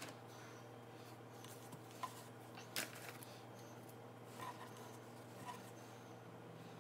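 Faint handling sounds: a few light taps and rustles of an egg roll wrapper being laid out on a plastic cutting board, the sharpest just before three seconds in, over a steady low hum.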